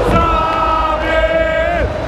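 Large football crowd of Grêmio supporters singing a chant in unison, with long held notes that change pitch about every second.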